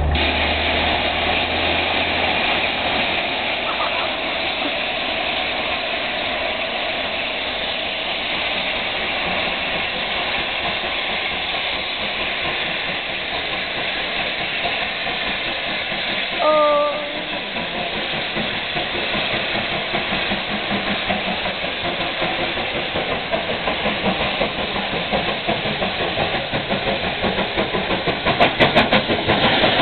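Steady hiss of escaping steam from the steam locomotive Clan Line, a rebuilt Southern Railway Merchant Navy class 4-6-2. A brief pitched tone sounds about halfway through, and near the end a regular beat grows louder.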